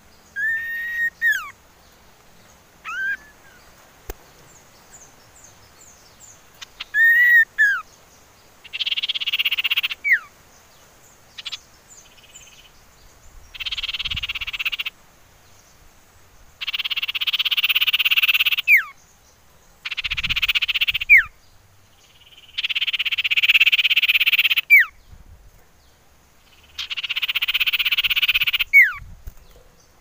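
Common iora calling: a few short arched whistles in the first several seconds, then about five long churring trills of a second or two each, most ending in a quick falling whistle.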